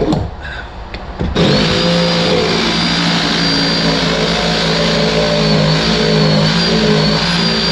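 Electric power sander switched on about a second and a half in, running steadily with a high whine, and switched off near the end.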